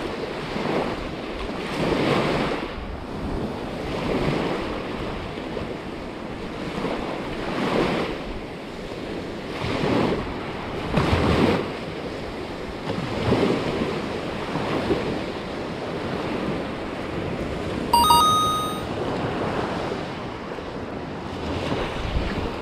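Small surf waves washing up onto a sandy beach, swelling and falling every couple of seconds, with wind buffeting the microphone. Near the end a brief, high two-note chirp sounds.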